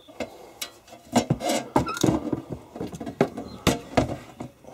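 Sheet-metal cover of a small electrical subpanel being handled and its door pulled open: a series of light metallic clicks and knocks.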